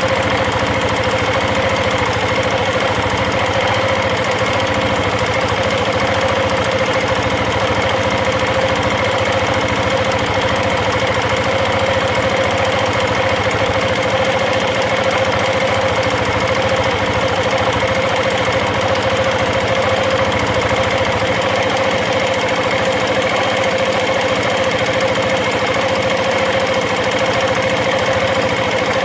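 KTM 690 Enduro's single-cylinder engine running steadily when warm, with a fast, even metallic chatter from the top end that the owner takes for valve chatter after a rebuild with new rockers and freshly shimmed valves.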